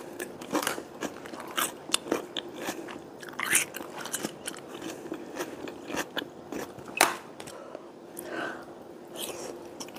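A person chewing and biting food close to a clip-on microphone, with many irregular short crunchy clicks; the loudest is about seven seconds in.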